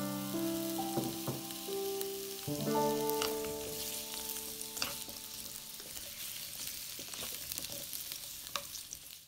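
Hairy melon cubes and garlic sizzling in hot oil in a nonstick wok, with the scrape and tick of a spatula stirring them. Soft background music plays underneath, mostly in the first half.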